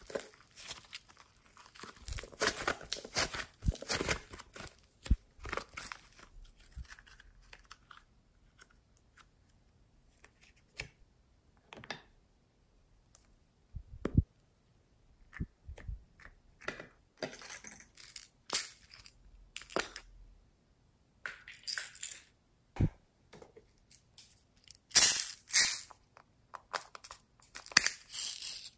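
Fluffy slime being squeezed and pulled apart by hand, giving crackling, tearing clicks, densest over the first few seconds and then sparse with quiet gaps. Near the end come louder sharp clicks and rattles as a small plastic container of pearl beads is handled and opened.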